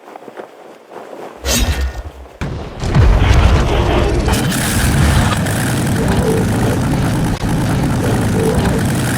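Film sound effects for a robot's mid-air transformation. About a second and a half in comes a sudden loud hit, followed from about three seconds in by a loud, continuous mass of booming and mechanical noise with a heavy low rumble.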